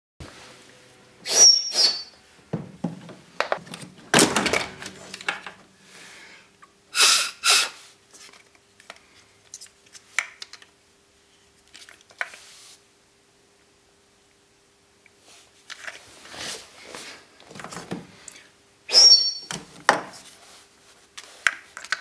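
Hard plastic clicks, knocks and rattles as the drain pump and float unit of a condenser tumble dryer is unclipped from the dryer's base and handled. Several sharp snaps, two of them with a short high ring, come at irregular intervals, with a quieter stretch about two thirds of the way through.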